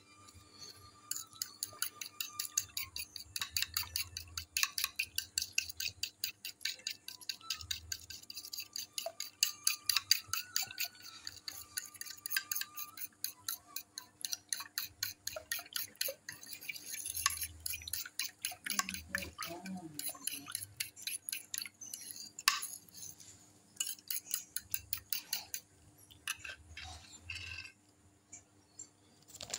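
A metal utensil beating eggs and milk in a ceramic baking dish, clicking against the dish in a quick, steady rhythm that becomes sparser near the end.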